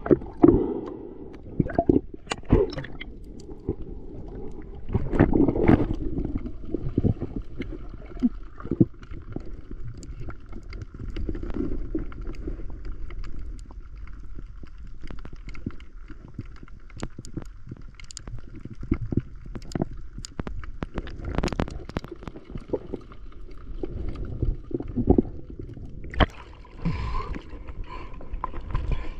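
Underwater sound through an action camera's housing: a low rush of moving water and gurgling, dotted with many sharp clicks and pops. About three seconds before the end the camera breaks the surface and water splashes and laps around it.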